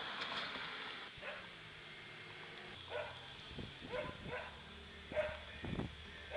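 A passing car's tyre noise fades out in the first second. From about three seconds in, a dog barks repeatedly in short barks.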